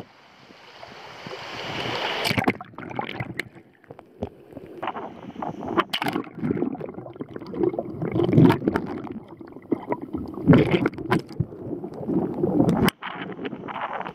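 Water sloshing and gurgling around a camera dipped in and out of the water, swelling and fading irregularly, with sharp knocks and splashes throughout.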